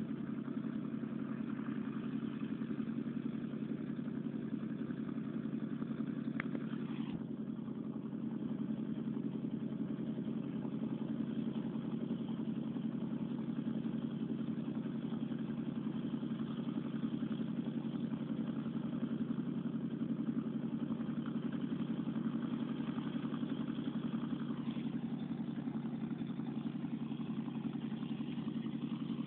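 A steady low mechanical hum with a constant pitch, unchanging throughout.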